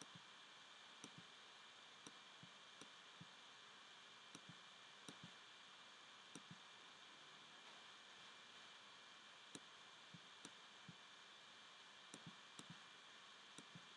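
Faint, irregular clicks of a computer mouse and keyboard over a steady hiss, some in quick pairs and clusters.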